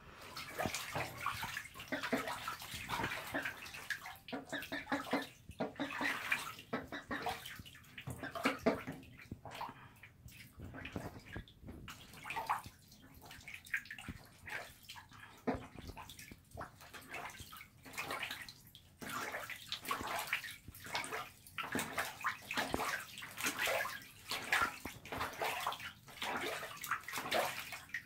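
Two young ducks paddling and dabbling in bathtub water: irregular small splashes and sloshing against the tub.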